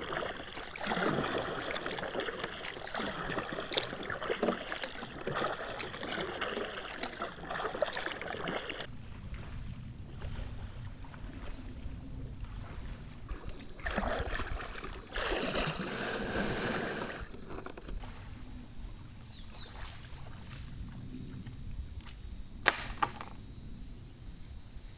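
Water splashing and sloshing around a kayak, likely from paddling, busiest for the first nine seconds or so and again in two short spells midway. A single sharp knock comes near the end.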